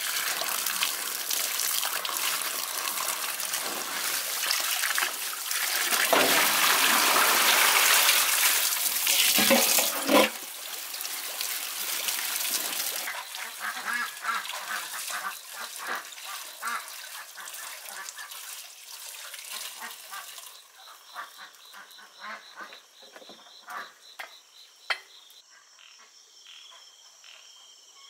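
Tap water running and splashing into a basin over a plastic bag of frogs being rinsed, loudest about six to ten seconds in. After about twenty seconds the water is gone and a chorus of night insects with regular croaking frog calls takes over.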